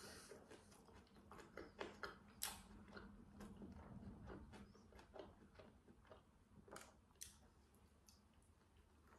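Quiet, close mouth sounds of a person chewing a bite of a McDonald's jalapeño burger: irregular soft wet clicks and smacks.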